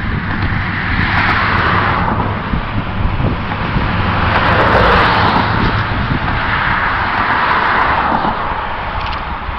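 Diesel-electric freight locomotives, GE units, working hard up a grade in the distance: a steady low engine drone under a rushing noise that swells and fades every few seconds. The train is moving slowly, and it is suspected that one of its engines has issues.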